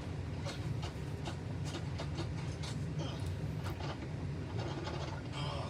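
Faint wet mouth clicks and smacks from licking a strawberry Slime Licker rolling liquid candy, over a steady low rumble.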